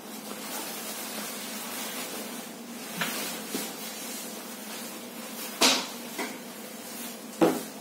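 Handling noise of gear being moved about: a steady hiss with a few sharp knocks, the two loudest about five and a half and seven and a half seconds in.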